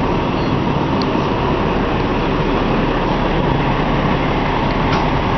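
Steady, loud drone of fire engines running at a fire scene.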